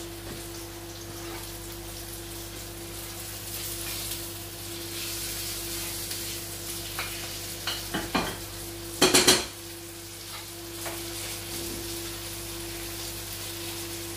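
Sea bass fillets sizzling steadily as they pan-fry in a frying pan, over a steady hum. A few clicks about eight seconds in, then a loud clatter and scrape of the spatula against the pan just after nine seconds as the fish is worked.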